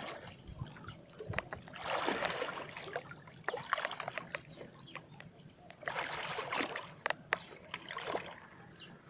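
Water splashing and sloshing as a person wades through knee-deep floodwater carrying a bucket, louder in two bursts about two seconds in and again around six to seven seconds, with scattered sharp knocks.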